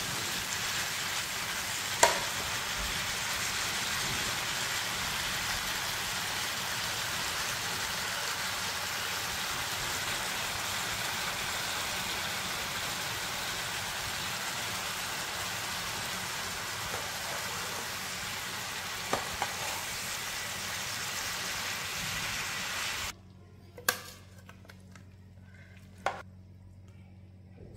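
Bitter melon, pork and egg sizzling in a frying pan as they are stir-fried, with a sharp clack of the spatula against the pan about two seconds in. The sizzling cuts off near the end, followed by two sharp knocks as the food is tipped onto a plate.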